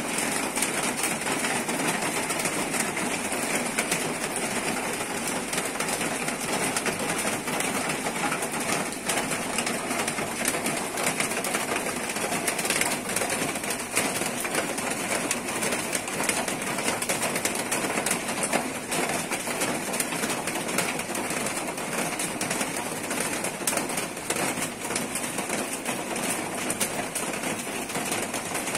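Heavy rain pouring down steadily, an even, dense hiss of falling drops.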